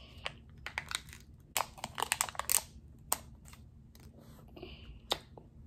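Plastic packaging of a Kinder Joy egg being handled and opened: a few sharp clicks, then about a second of crinkling and tearing as the cover is peeled off, followed by a couple more clicks.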